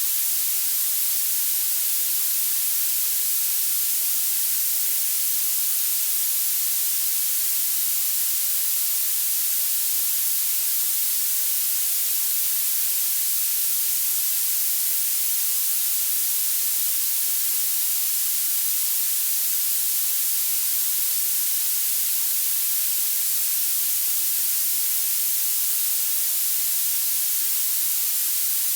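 Violet (purple) noise, a steady synthetic hiss weighted toward the high frequencies, with little bass.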